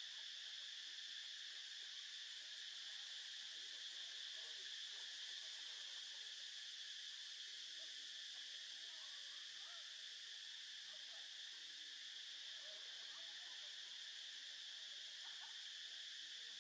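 A steady insect chorus drones without a break, a continuous high-pitched hiss.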